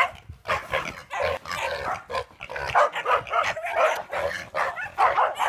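Several dogs barking repeatedly in quick bursts, with pigs grunting among the barks.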